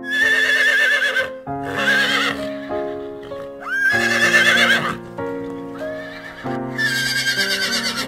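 Horse neighing: four whinnies of about a second each, with a quavering, wavering pitch, over a gentle piano background tune.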